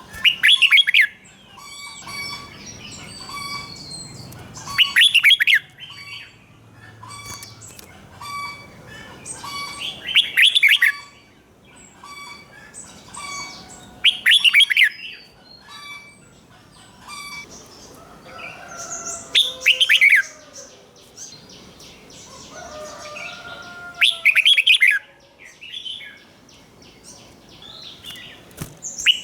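Red-whiskered bulbul singing: loud, short warbled phrases repeated about every four to five seconds, with softer, evenly repeated chirps between them.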